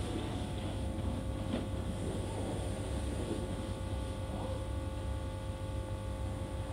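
Hormann WA300 R S4 operator motor running steadily with a low hum, winding the aluminium slats of a Decotherm A SB industrial roller door up onto its drum as the door opens.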